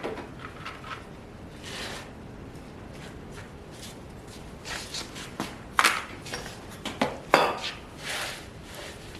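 Scattered metal clinks, knocks and rattles from welding gear being handled, with the sharpest knocks a little before the middle and twice more in the second half.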